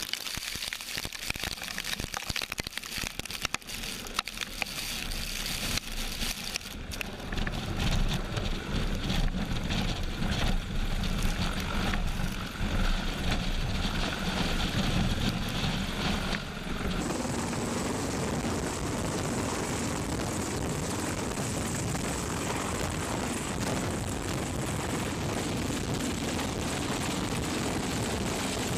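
Sikorsky CH-53 heavy-lift helicopter hovering low overhead, its rotor downwash buffeting the microphone in gusts over the heavy noise of the rotors and engines. A little past halfway the sound changes abruptly to a steadier rush with a thin high whine.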